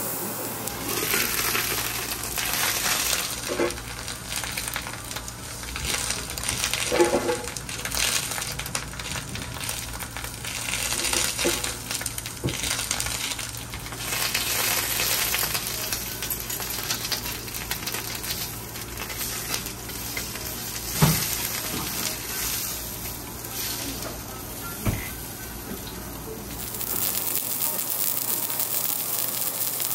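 Food sizzling on a steel teppanyaki griddle, the hiss swelling and fading, with a metal spatula and fork scraping and clinking against the steel. There are a few sharp clacks, the loudest about two-thirds of the way through.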